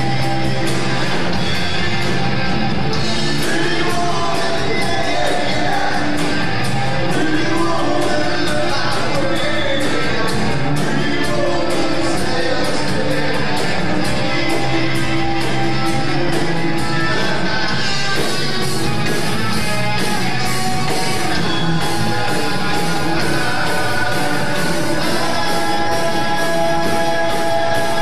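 Live rock band playing through a PA: drums keeping a steady beat under electric guitars and a lead singer.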